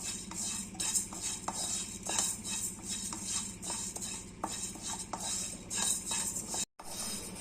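A spoon stirring raw red rice as it dry-roasts in a hot pan: irregular clinks and scrapes against the pan over a steady hiss of the toasting grains. The sound briefly cuts out near the end.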